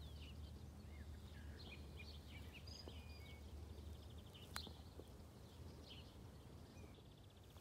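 Faint outdoor ambience: small birds chirping in short high notes over a low steady rumble, with one sharp click about four and a half seconds in.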